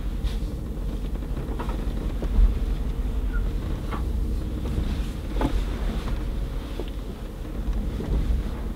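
Mercedes-Benz G500 4x4²'s twin-turbo V8 running low and steady, heard from inside the cabin as the vehicle crawls over rocky ground. A few light knocks come through along the way.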